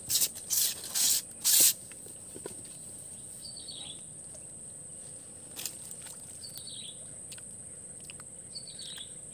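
Steady high-pitched drone of insects, with a bird giving a short falling call three times. In the first couple of seconds, four brief loud rustling noises stand out above it.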